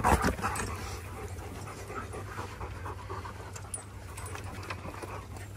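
Dogs panting close up, louder for the first half-second.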